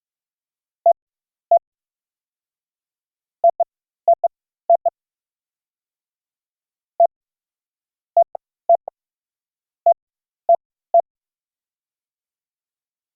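Morse code (CW) audio tone sent over the internet: short beeps at one steady pitch, in small irregular groups with pauses between, as in slow hand-sent code.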